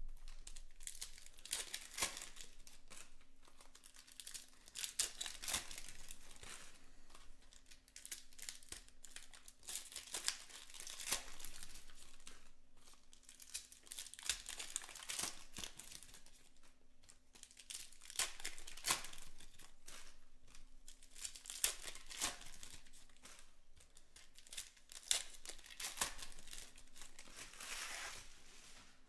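Shiny trading-card pack wrappers being torn open and crinkled by hand, in repeated bursts of crinkling every few seconds.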